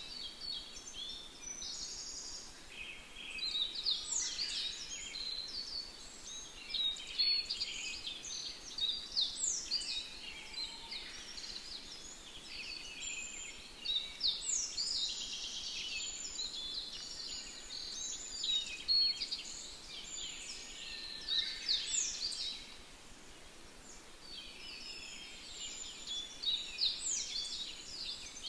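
Many birds chirping and calling in a busy chorus, short high-pitched falling notes coming in overlapping clusters every second or two.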